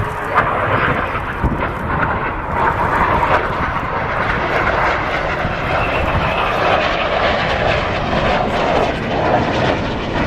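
Two BAE Hawk T1 jets flying a low-level pass, their turbofan engines making a steady, loud rushing jet noise that settles lower in pitch about two-thirds of the way through as they go by.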